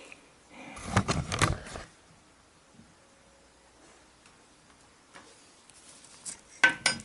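Handling noise as a wooden model ship and small tools are worked by hand. A rustle with clicks comes about a second in, then quiet room tone, then a few sharp clicks near the end.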